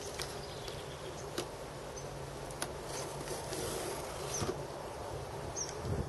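Light handling of a cardboard box: a few faint clicks and a brief scraping rustle partway through, over a steady low hum, with a few short high chirps near the end.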